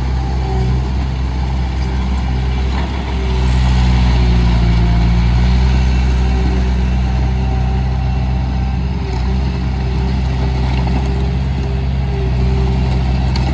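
Bobcat T320 compact track loader's diesel engine running steadily, its speed rising about three seconds in and easing back down a few seconds later.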